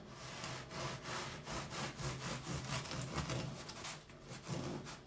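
Bread knife sawing back and forth through the hard crust of a freshly baked pain de campagne loaf, in quick repeated strokes.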